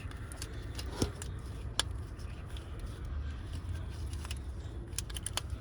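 A few light clicks and scrapes of a loosened starter bolt being turned out by hand in the engine bay, over a steady low rumble.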